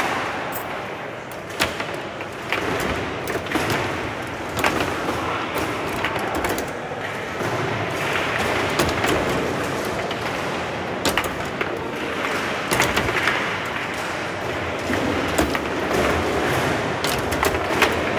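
Foosball table in play: sharp, irregular clacks of the ball struck by the plastic figures and knocks of the steel rods, over steady hall noise.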